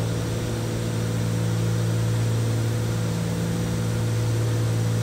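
Cessna 310's twin piston engines and propellers droning steadily in flight, heard inside the cockpit: an even low hum with a light hiss over it.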